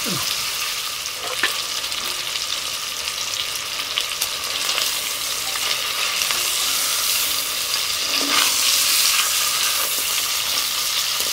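Chicken breasts sizzling in butter and oil in a cast-iron pot, with a wooden spatula scraping and knocking against the pot as they are turned to brown. The sizzle grows louder for a couple of seconds near the end.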